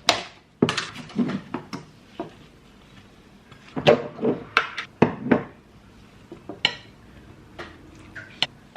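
Knife, plate and jar knocks and clinks as butter and jam are spread on a toasted buttery. The sharp taps come in clusters: one in the first two seconds, a louder one around four to five seconds in, then scattered light ticks.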